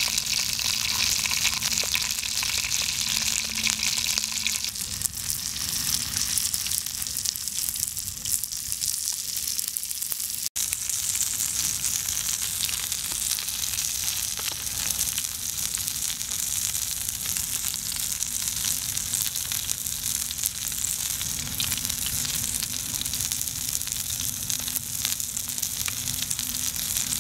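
Dried fish frying in a shallow metal pan, sizzling with a steady fine crackle; the sound drops out for a moment about ten seconds in.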